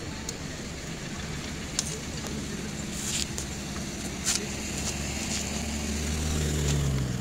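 Low rumble of road traffic that swells near the end, with two short sharp clacks of gear being handled: a portable power station and small solar panel lifted out of a car boot.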